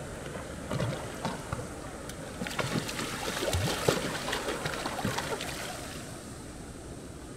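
Shallow river water splashing and sloshing around a person's legs and a small dog being moved through it, over the steady rush of the stream. The splashing is busiest in the middle and dies away near the end.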